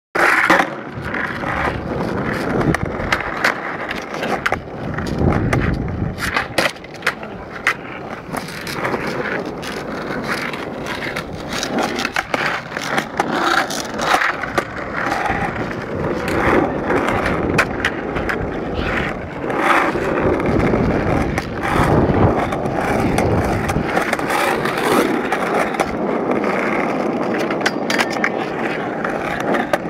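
Skateboard wheels rolling over rough pavement, with many sharp clacks and knocks of the board striking the ground as the riders kick and flip it.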